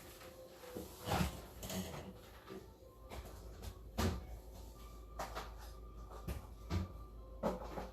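Kitchen clatter: a series of separate knocks and clunks from doors, drawers and containers being opened, closed and handled, about seven in all.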